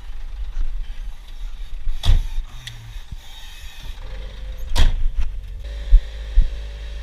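Scania tanker truck's engine running with a steady low rumble, with two sharp knocks about two and five seconds in and a steady hum joining about four seconds in.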